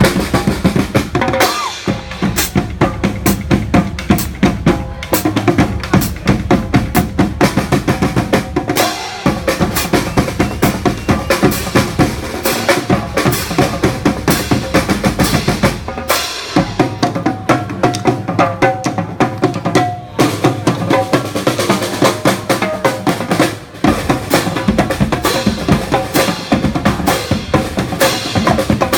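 Street marching band playing, a fast, driving drumline of bass and snare drums with held horn notes over it. The drumming breaks off briefly a few times.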